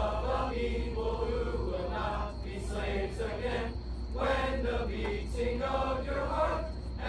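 A large group of voices singing together in unison, in slow phrases with short breaks between them, over a steady low hum.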